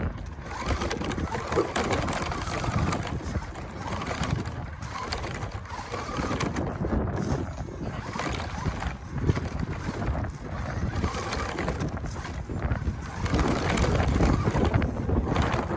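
Battery-powered RC Ford F-150 Raptor toy monster truck driving over loose desert gravel: its motor running and its wheels crunching and rattling over the rocks, with wind buffeting the microphone.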